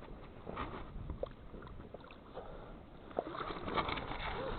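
Light water sloshing and splashing at the water's edge with scattered small knocks, as a hooked channel catfish is brought in to the bank. A short bird call sounds near the end.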